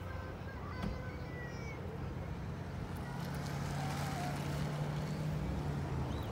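An engine running nearby, a steady low hum that stops shortly before the end.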